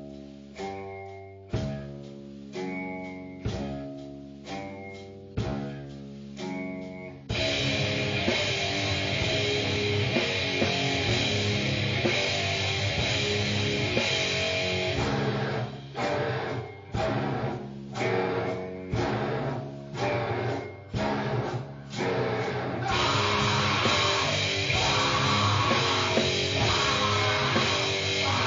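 Distorted grind/noise rock music. A heavily distorted guitar plays stop-start chord hits about once a second. About seven seconds in, the full band crashes in with drums. Midway the spaced chord hits return, and the full band resumes near the end.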